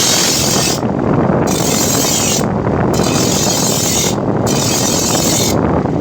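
Grinder running steadily while the steel blade of a chaff cutter is sharpened on it: a loud grinding hiss comes and goes in four passes of about a second each, with short breaks as the blade is lifted off.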